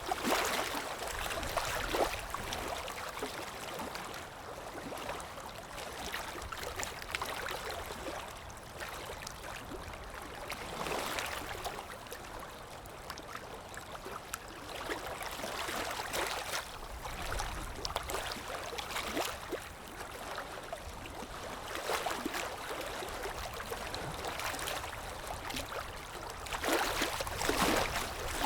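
Moving water gurgling and splashing steadily, swelling louder every few seconds.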